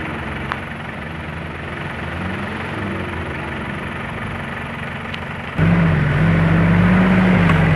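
Truck engines running on a muddy track. About five and a half seconds in, a nearer engine suddenly gets much louder and holds a steady high rev, easing off slightly near the end.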